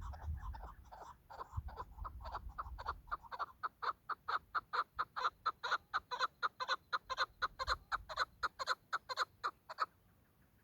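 Chukar partridge giving its rapid, clucking rally call: a long series of repeated notes, about five a second, building louder and then stopping abruptly near the end.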